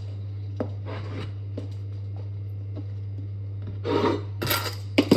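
Cleaning noises: a few light clicks and knocks, then a louder stretch of rubbing and scraping on a surface near the end, finishing with a sharp knock, over a steady low hum.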